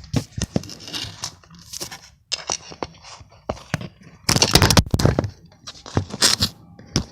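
Close rustling and handling noise: a run of crinkling, scraping clicks, with a louder stretch of rustling about four seconds in.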